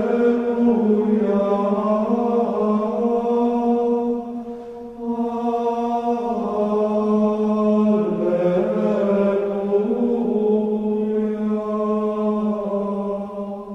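Sung vocal chant in long held notes with slowly shifting pitch, breaking briefly about four and a half seconds in and fading out at the end.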